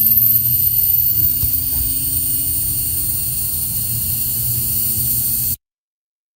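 Steady machine hum and hiss with a thin high-pitched whine, cutting off suddenly about five and a half seconds in.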